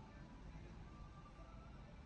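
Faint background music with a few soft held notes over a low hum.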